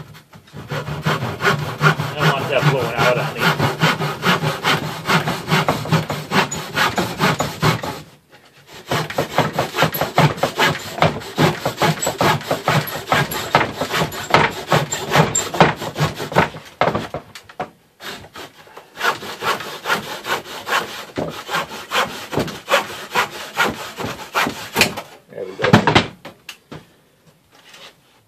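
Handsaw cutting through a weathered cedar board with rapid back-and-forth strokes, in three long bouts with two short pauses. Near the end a single louder knock as the sawn-off piece comes free.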